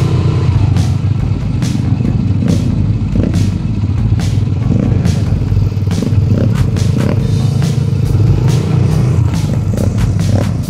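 The engine of a 200cc gas-powered ATV running steadily as it is ridden, with frequent clattering knocks.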